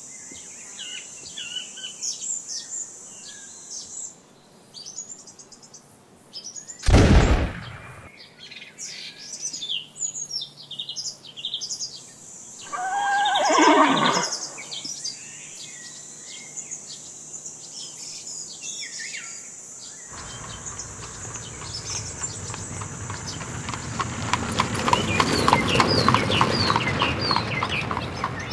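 Added sound effects: birdsong chirping throughout, and a single loud pistol shot about seven seconds in. Around thirteen seconds a horse whinnies, its pitch falling. From about twenty seconds a steady clatter with rapid ticking builds in and grows louder.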